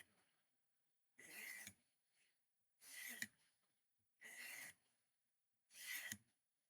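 Knife blade drawn across a small handheld knife sharpener in soft, even scraping strokes, four of them about a second and a half apart.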